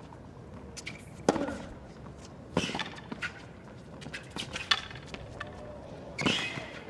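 Tennis ball struck back and forth with racquets in a baseline rally on a hard court. There are four sharp hits, roughly one and a half to two seconds apart, with lighter ball bounces and footfalls between them.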